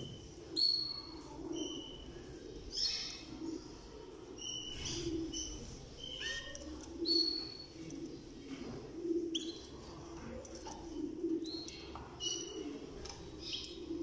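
Caged canaries giving short, scattered chirps and call notes, several in quick runs. Underneath, a low sound swells and fades about every second or two.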